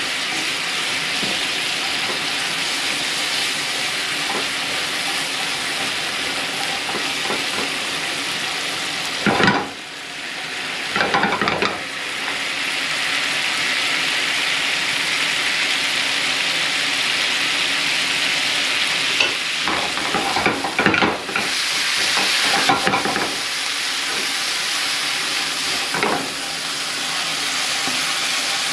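Scallops sizzling in sauce in a hot frying pan, a steady hiss. A spatula knocks and scrapes against the pan a few times, around ten seconds in and again past twenty seconds.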